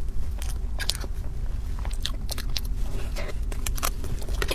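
Close-miked eating sounds of a person chewing spoonfuls of soft cake: irregular wet mouth smacks and clicks.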